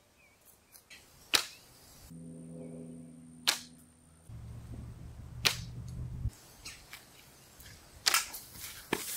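Wrist-brace slingshot being shot: four sharp snaps of the rubber bands releasing a ball, about two seconds apart, with a faint low hum partway through.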